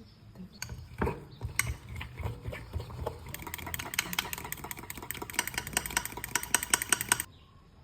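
Pancake batter being mixed in a bowl: scattered knocks at first, then a quick, even run of clattering strokes from about three seconds in that stops suddenly near the end.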